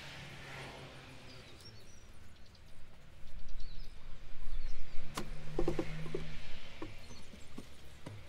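Outdoor background with faint birdsong. In the middle comes a louder stretch of low rumble and a few sharp knocks and clatters as things are handled and set down.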